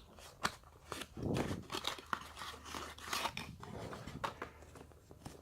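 Small cardboard box and packaging being handled: irregular crinkles, crackles and light clicks as a charger is taken out.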